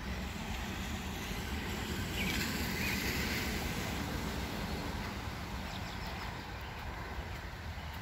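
A vehicle passing on the rain-wet road, its tyres hissing on the wet surface, swelling about two seconds in and fading again, over a steady low rumble.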